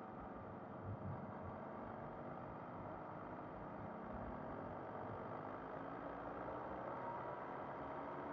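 MV Agusta Brutale 800 Rosso's three-cylinder engine under steady wind and road rush, its pitch rising slowly from about three seconds in as the bike speeds up. Two brief thumps about a second in.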